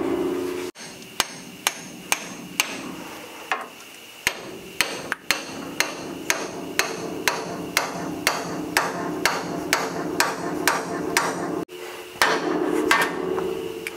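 Repeated hammer blows on the steel steering knuckle of a squarebody Chevrolet C30 front suspension, about two sharp metallic strikes a second with a short pause near the end. The hammering is meant to shock the stubborn lower ball joint's tapered stud loose from the spindle.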